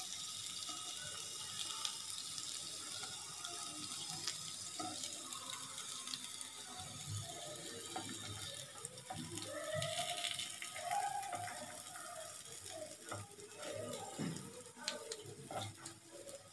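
Rava-coated potato slices shallow-frying in oil in a nonstick pan, a steady sizzle, with light clicks from a knife and spatula turning the slices, more of them near the end.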